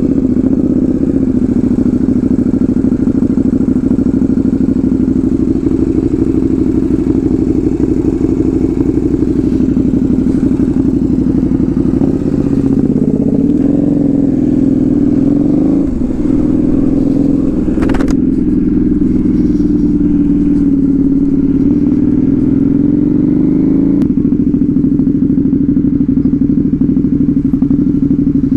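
Motorcycle with a loud aftermarket exhaust running at steady, low revs, its pitch rising and falling a little about halfway through and again near the end. There is one sharp click a little past the middle.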